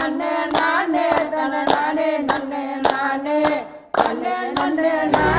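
Group singing a Tamil devotional song with steady rhythmic hand clapping, a little under two claps a second, over a held drone. Singing and clapping break off briefly about four seconds in, then resume.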